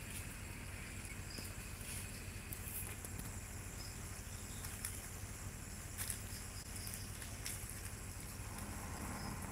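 A steady low engine hum, with faint high insect chirring and scattered light clicks over it.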